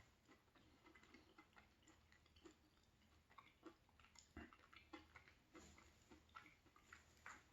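Faint, close chewing of chocolate with crunchy cookie pieces: scattered soft mouth clicks and crunches at an uneven pace.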